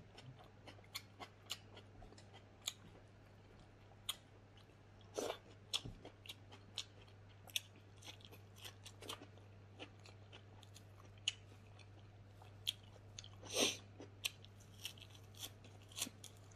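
A person chewing and crunching raw greens and vegetables close to the microphone, with many short irregular crunches and mouth clicks; two crunches, about a third of the way in and near the end, are louder. A faint steady low hum runs underneath.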